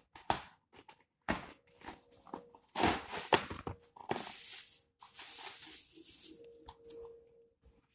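A few short rustles and knocks, then a clear plastic bag crinkling and rustling almost continuously for several seconds as the plastic-wrapped parts of a tummy trimmer are pulled out and handled.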